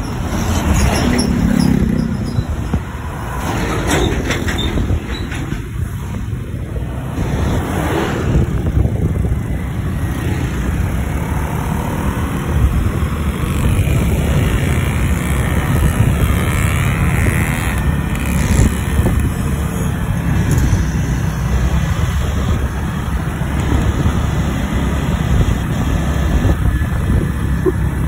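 Motorcycle engines and road traffic heard from a moving motorcycle in dense traffic: a steady, loud low rumble.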